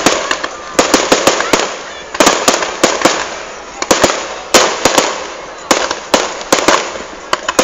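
Fireworks display: aerial shells bursting in a rapid run of sharp bangs, coming in clusters about every second, with crackle and hiss between the reports.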